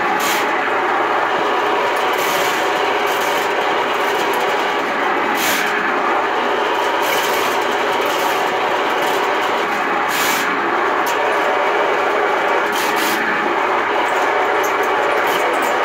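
Ridgid K-60 sectional drain-cleaning machine running steadily, its motor spinning 7/8-inch cable down a clogged drain line. A few sharper rattles come through every few seconds.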